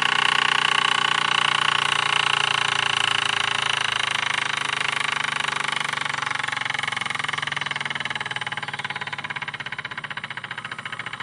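RETROL SE-02 brass model horizontal steam engine running under steam: a steady hiss with rapid, even exhaust beats, slowly growing quieter.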